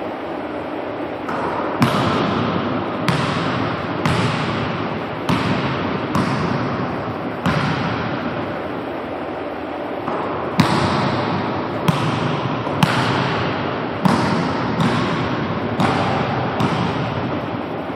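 A basketball bouncing on a hardwood gym floor: irregular thuds about once a second, each with a long echo that rings on in the large, empty gym.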